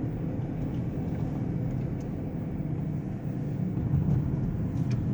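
Steady low rumble of a car being driven: engine and road noise heard from inside the cabin.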